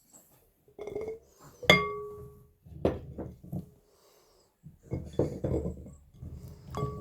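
Dishes or glassware being handled: two sharp clinks that ring briefly, one about two seconds in and one near the end, with rougher knocking and handling sounds in between.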